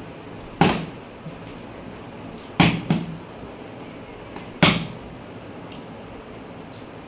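Plastic juice bottle being flipped and landing on a tabletop: four sharp knocks, two of them close together near the middle.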